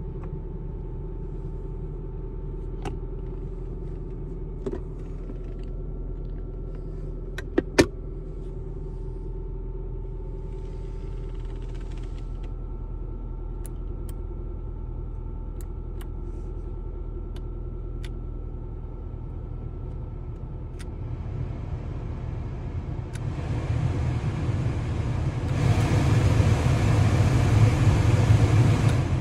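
Nissan 240SX's 2.4-litre KA24E four-cylinder idling, heard from inside the cabin, with the clicks of dashboard buttons being pressed. Near the end the heater blower fan is switched up through its speeds, and its rushing air grows louder in two steps.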